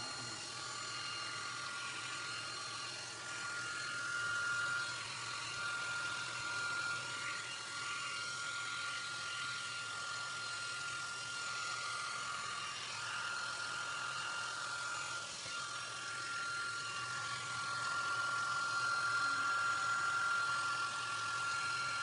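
Hair dryer running steadily with a constant high whine, blowing hot air onto a refrigerator's iced-up evaporator to defrost it.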